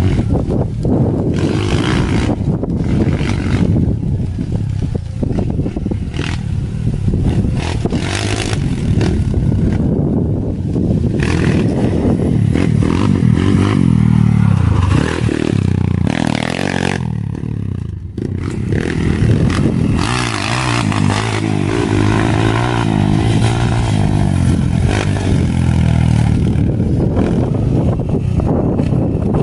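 Kawasaki KLX dirt bike's single-cylinder four-stroke engine, bored up to 170cc, running hard under throttle with revs rising and falling through the gears. The revs climb to a peak a little past the middle, then drop sharply for a moment before picking up again.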